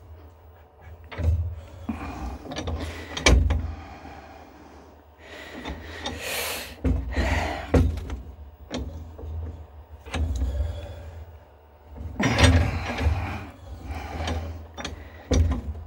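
A bench vise being worked by hand on a small copper blank: irregular metal clicks, knocks and brief scraping and sliding sounds, over a steady low hum.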